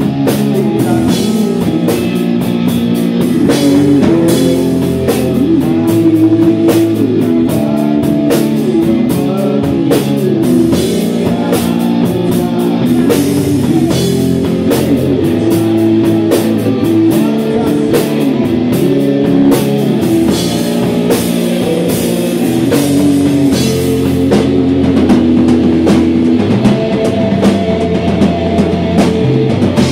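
Live rock band playing loud: electric guitar through an amplifier over a drum kit.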